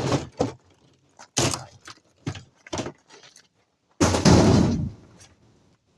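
A string of knocks and clunks, ending in a loud slam about four seconds in, typical of a car door being shut.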